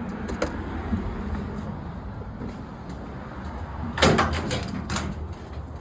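Steady low rumble, with a loud sharp clatter about four seconds in and a second, smaller knock just under a second later.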